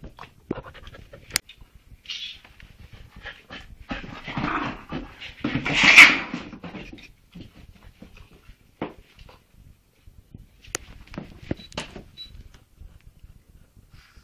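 Dogs, a Leonberger puppy and a Chihuahua, panting, with scattered sharp clicks and a louder, rough noise lasting a couple of seconds that is loudest about six seconds in.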